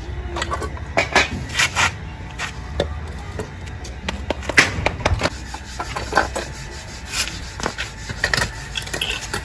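Irregular knocks, clinks and scrapes of hand tools and parts being handled during work on a motorcycle, several sharp strikes a second at times, the loudest about four and a half seconds in.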